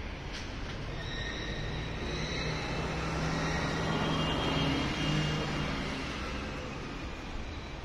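A passing vehicle's engine rumble with a whine, growing louder to a peak about halfway through and then fading.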